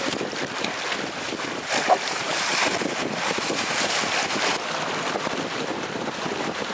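Wind buffeting the microphone over the rush and slap of choppy sea water, with one brief louder knock about two seconds in.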